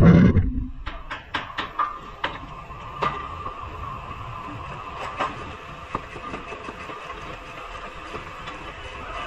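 Hand-tool work under a car's front suspension: a dull low thump at the start, then a run of sharp metallic clicks and knocks, with a few more scattered later. A steady workshop machine hum runs underneath.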